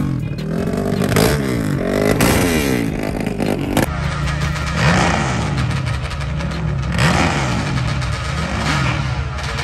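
A drag-racing quad's engine revved repeatedly up and down close by. About four seconds in the sound changes abruptly to a more distant engine revving up and down again and again at the drag strip's starting line during a burnout.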